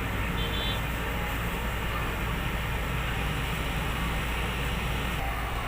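Steady low hum under an even background noise, unchanging throughout.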